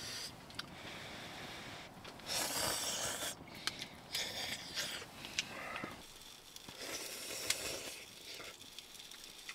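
Hot noodle soup being slurped from a pot, three or four slurps about a second long each, with a few sharp crackles from the wood stove's fire in between.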